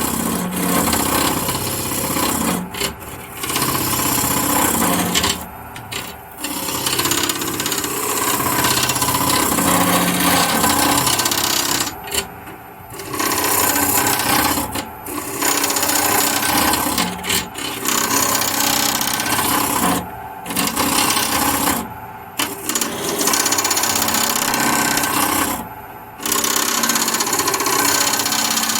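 Turning tool cutting into wood spinning on a lathe, a continuous scraping hiss over the lathe's running hum, broken by short pauses every few seconds as the tool lifts off the work.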